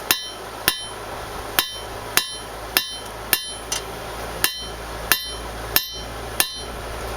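Hand hammer forging a hot silver steel bar into a knife blade on an anvil: about ten even blows, a little under two a second, each with a short metallic ring. A low steady hum runs underneath.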